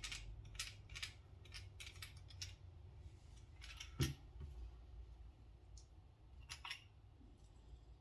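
Small clicks and taps of a pocket knife's parts and small tools being handled during reassembly: a quick run of clicks, one sharper knock about four seconds in, then a few more clicks.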